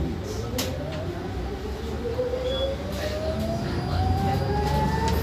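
Electric traction motor of a Marcopolo Attivi Integral bus, a WEG motor, whining and rising steadily in pitch as the bus accelerates, heard from inside the cabin. Low road rumble and a few light rattles run underneath.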